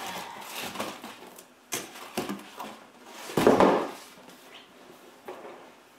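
Cardboard handling: rustling and scraping as a boxed jigsaw puzzle is pulled out of a cardboard shipping box. There are a couple of short knocks, and a louder rub or thump about three and a half seconds in.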